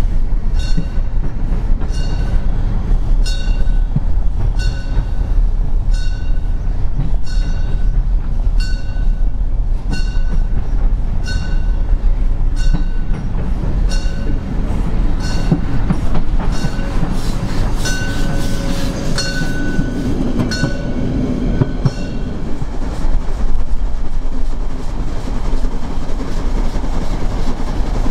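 Narrow-gauge steam tank locomotive 99 2321 (Molli) running along a street. Its bell rings steadily about once a second over the low rumble of the engine and train, then stops about three-quarters of the way in. A hiss of steam grows louder for a few seconds past the middle.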